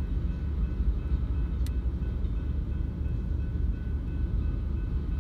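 Freight train of tank cars rolling slowly past: a steady low rumble of steel wheels on rail. Faint steady high tones sit above it, and there is a single sharp click about a second and a half in.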